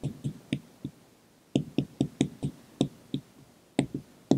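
Dry-erase marker knocking and clicking against a whiteboard in quick, irregular strokes as words are written, with a short pause a little after a second in.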